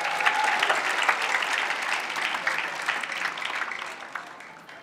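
Audience applauding at the end of a gondang ensemble piece: dense clapping that swells at the start and dies away near the end.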